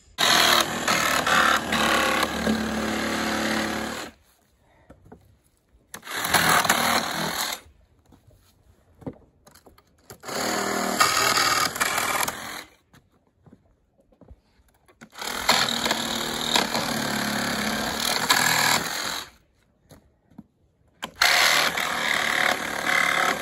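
Cordless reciprocating saw cutting through pallet wood, run in five bursts of a few seconds each with short pauses between them.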